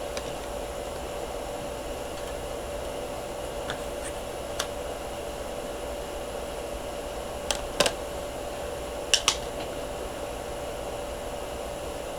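A CD jewel case and its paper booklet being handled, giving a handful of short sharp plastic clicks and taps, the loudest a little past the middle and another pair about a second and a half later. A steady fan-like hum runs underneath.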